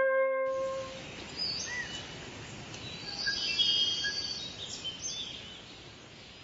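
A held musical note ends about a second in, giving way to outdoor ambience with birds chirping, which fades out near the end.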